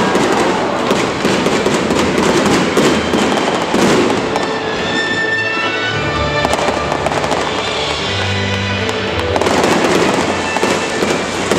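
Fireworks display: dense crackling and popping from launches and bursting shells, thickest over the first few seconds and again near the end. Music plays underneath and comes through more clearly in the middle stretch, where the crackling thins out.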